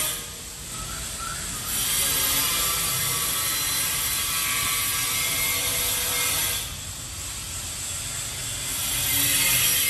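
A small hand tool scraping back and forth over grout lines on glazed wall tiles, making a continuous scratchy noise. The noise eases off twice, about half a second in and again at about seven seconds.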